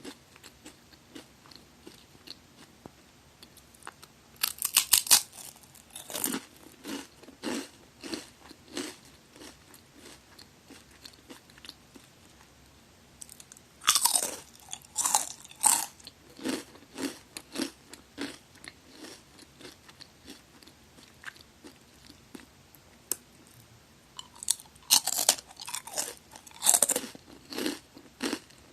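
Close-miked crunchy eating of magari senbei crackers: three loud bites about ten seconds apart, each followed by steady crunchy chewing.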